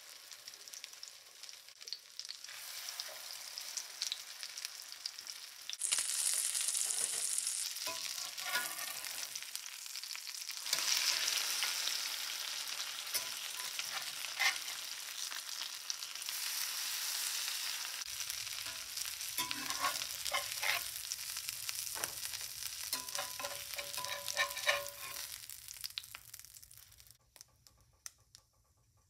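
Egg-and-Parmesan-coated chicken breasts sizzling in butter and olive oil in a cast-iron skillet, with clinks and scrapes of metal tongs and a slotted spatula turning and lifting them. The sizzle dies down near the end.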